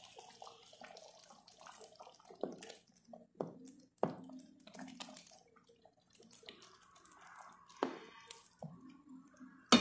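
Wooden spoon stirring a simmering pot of beans and chicken in sauce: wet sloshing and bubbling, with the spoon knocking now and then against the stainless steel pot and a sharper knock near the end.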